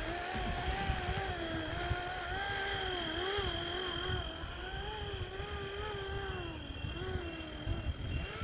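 Flywing 450-size electric RC helicopter in flight, its motor and rotor whine wavering up and down in pitch as it manoeuvres. Wind rumbles on the microphone underneath.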